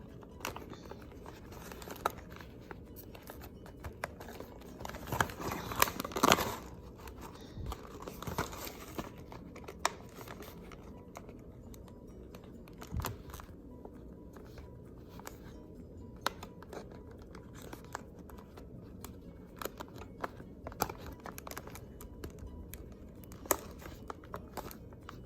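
Glossy paper chip bag crinkling and rustling as it is handled and positioned in a paper crimper, with scattered light clicks and a louder stretch of crinkling about five to six seconds in.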